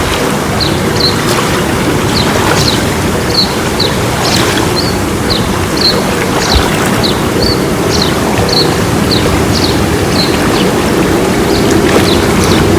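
Small birds chirping: short high chirps repeated about twice a second over a steady rushing noise.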